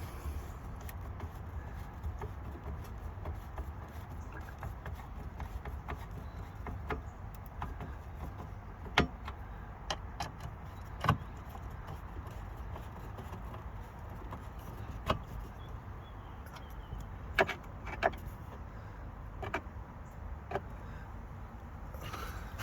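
Scattered sharp clicks and knocks of hand work fitting a plastic speaker grille onto a car's rear door, over a steady low rumble.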